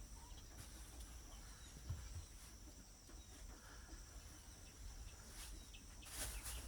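Faint outdoor ambience: scattered distant bird chirps over a steady high-pitched hum and low rumble, with a short rustling noise near the end.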